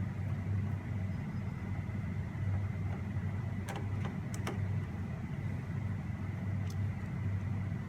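A steady low hum with a slow pulsing, broken by a few light clicks a little past halfway.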